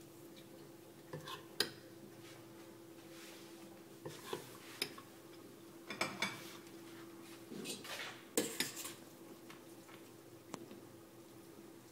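Metal spoon clicking and scraping against a dish while spreading a sticky glaze over raw chicken drumsticks, in scattered irregular knocks, with a cluster of them about eight seconds in.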